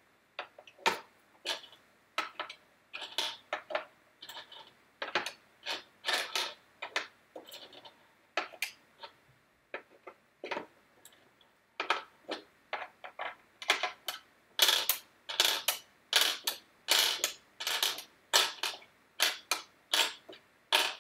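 Small pegs clicking against a plastic nine-hole pegboard and its dish as they are picked up, pushed into the holes and pulled out again one at a time. The clicks are irregular, a few a second, and come faster in the second half.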